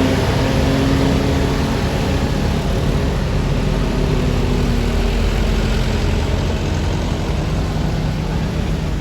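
Heavy bus engine running with a loud, steady low rumble; a low engine note fades over the first few seconds.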